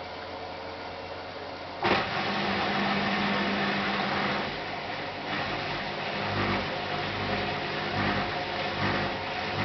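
Hotpoint NSWM 843C inverter-motor washing machine: a steady hiss, then a sudden click about two seconds in as the drum motor starts. From then on the machine runs with a steady hum and an uneven low rumble from the turning drum.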